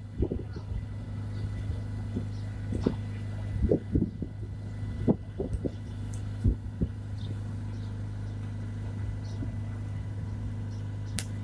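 An engine running steadily with a low hum, with irregular knocks and clunks over the first several seconds and a sharp click near the end.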